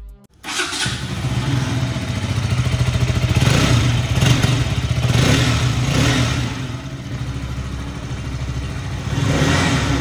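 KTM RC 200's single-cylinder engine starts up about half a second in and runs at idle, heard through its exhaust. A quick run of throttle blips comes in the middle, and the engine is revved again near the end.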